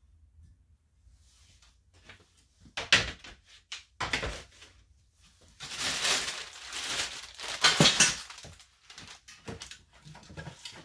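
Rummaging in a plastic tote of spare parts: a few knocks of parts being moved, then a plastic shopping bag crinkling loudly as it is pulled out and set down, from about six to eight seconds in.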